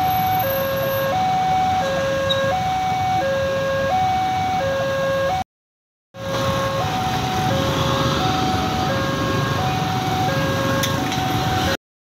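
Railway level-crossing warning bell sounding a steady two-tone alarm, a low note and a higher note alternating about every 0.7 seconds, over the noise of waiting traffic. The sound breaks off for about half a second near the middle, then resumes with the same pattern.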